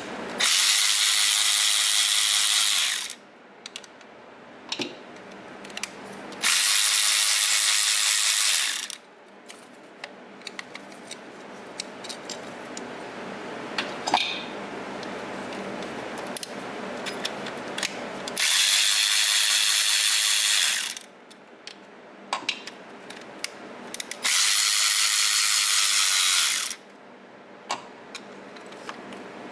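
Cordless electric ratchet running in four bursts of about two and a half seconds each, backing out the bolts of the engine computer brackets. Between the bursts there are light clicks from the tool and bolts being handled.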